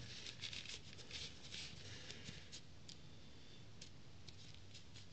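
Faint rustling and crinkling of a plastic-wrapped postal parcel being turned in the hands, with a few light clicks near the end as scissors are set to its tape.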